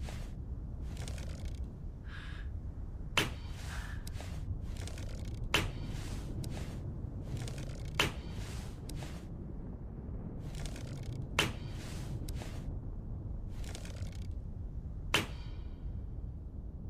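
Homemade wooden bow and arrow being shot and handled: five sharp snaps a few seconds apart, with softer clicks and rustles between them. A steady low hum runs underneath.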